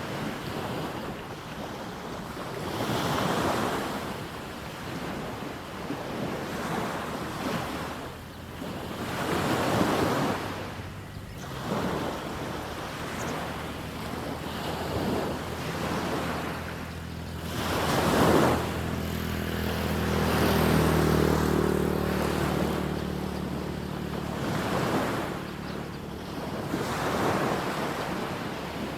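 Small sea waves breaking and washing up a sandy beach, a surge every two to three seconds. For several seconds past the middle a low steady hum sounds under the surf, then fades.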